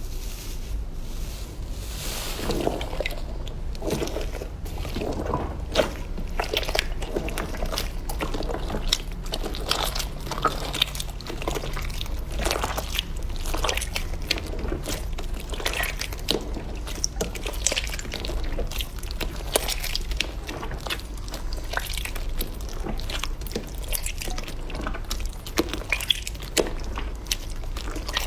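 Slime being played with: a continuous, irregular run of wet, sticky clicks and pops.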